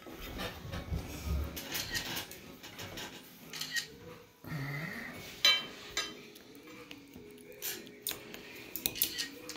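Scattered light clicks and taps of wooden chopsticks and tableware against a porcelain plate and a ceramic dipping dish. The sharpest click comes about halfway through.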